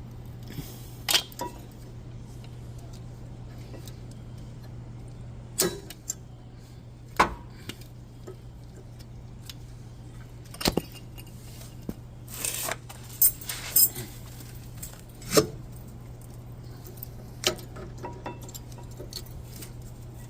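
Irregular metal clicks and clinks as a new, greased rear brake pad with its clip is worked into a Honda Odyssey's caliper bracket, over a steady low hum.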